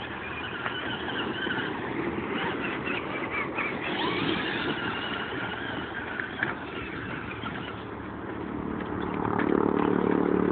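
Electric RC monster truck, a Traxxas E-Maxx with 775 brushed motors, being driven over dirt: a high motor whine rising and falling with the throttle over rough tyre and chassis noise. The truck grows louder near the end.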